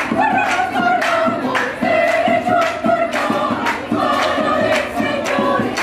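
Choir singing a Christmas carol (villancico) together, accompanied by a strummed small guitar, with strokes of the accompaniment about twice a second.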